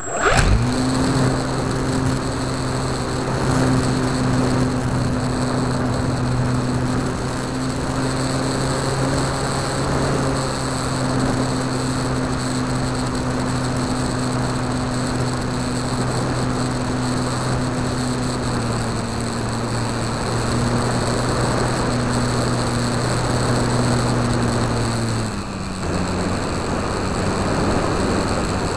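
Multiplex EasyGlider RC plane's electric motor and propeller running steadily in flight, heard from an onboard camera: a steady hum with a high whine over a constant hiss. About 25 seconds in, the low hum stops and the pitch drops.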